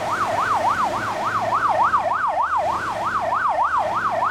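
Fire engine siren in yelp mode: a fast rising and falling wail, about four sweeps a second.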